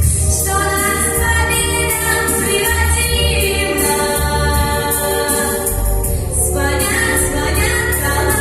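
Teenage vocal group singing together in long held notes over an instrumental backing track with a steady beat; the phrase breaks off about two-thirds of the way through and a new one begins.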